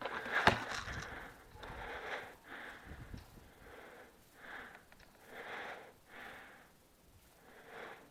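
A person's heavy breathing close to the microphone, a series of noisy breaths that slowly quieten, with a single sharp knock about half a second in.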